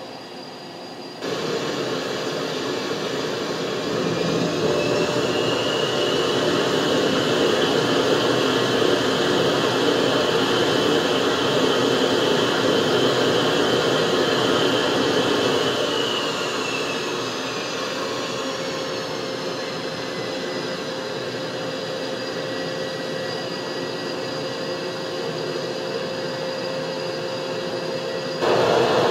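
F/A-18 Super Hornet's twin turbofan jet engines running on the ground: a steady rumble with a high whine that holds, then glides down in pitch about two-thirds of the way through.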